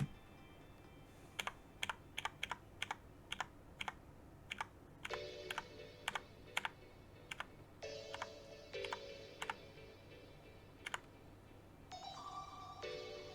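Mechanical keyboard with brown switches and new keycaps being typed on: single keystroke clacks at an uneven pace, sometimes several in quick succession. Faint music with short chiming tones plays underneath.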